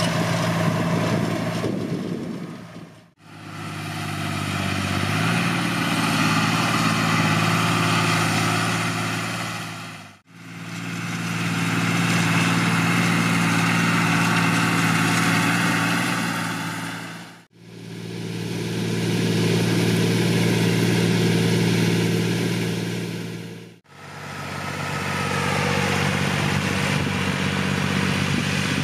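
John Deere 8100 tractor's six-cylinder diesel engine running steadily, heard in several clips of a few seconds each, with a brief fade-out and fade-in between them.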